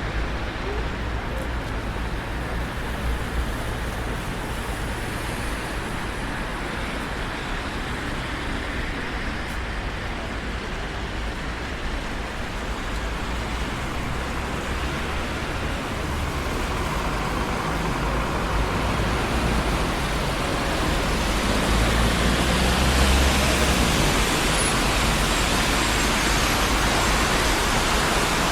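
Traffic on a busy city street: a steady wash of tyre and engine noise with a low rumble, swelling louder in the second half as vehicles pass close by.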